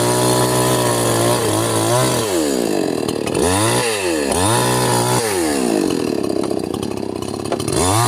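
A chainsaw engine being revved: it holds high, steady revs for about two seconds, then the throttle is let off and opened again three times in quick succession. It runs lower and rougher for a couple of seconds before revving back up sharply near the end.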